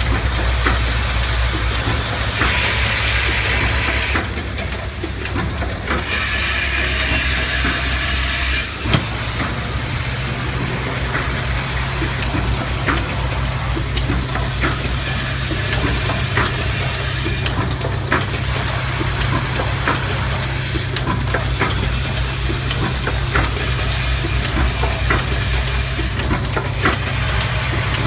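Mist sprayer and lotion pump assembly machine running: a steady low hum under a hiss, with frequent light clicks and one sharper knock about nine seconds in.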